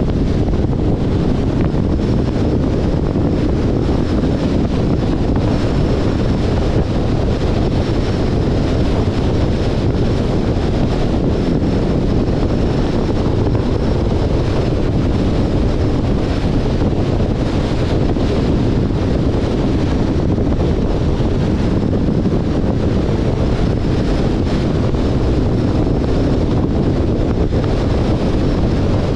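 Steady wind noise rushing over the microphone, mixed with the road and tyre noise of a 2021 Jeep Compass on the move.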